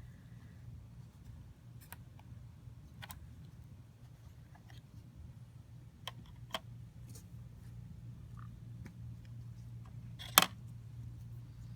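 Scattered small clicks and taps of laptop hardware being handled during a RAM upgrade, with one sharp click about ten seconds in, over a steady low hum.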